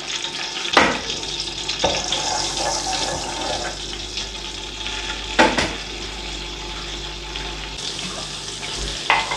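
Cumin seeds sizzling in hot oil in an aluminium pot, tempering for a cumin tadka: a steady crackling hiss. A wooden spatula knocks and scrapes against the pot three times, about a second in, midway and near the end.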